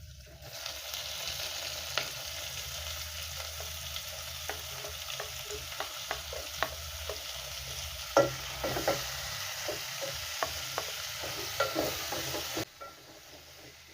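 Food sizzling as it fries in a pan, with scattered clicks and scrapes of a utensil stirring it. The sizzle starts about half a second in and cuts off abruptly near the end.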